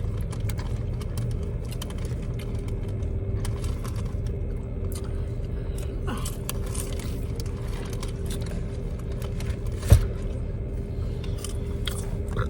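Steady low rumble with a steady hum over it, faint scattered clicks and rustles, and one sharp thump about ten seconds in.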